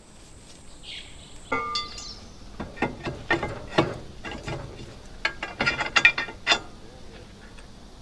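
Irregular light metallic clicks and clinks as metal parts of a steel frame and its locking pin are handled.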